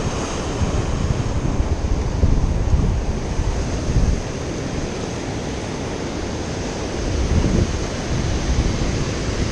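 Wind gusting across the microphone, a low uneven rumble, over the steady wash of ocean surf.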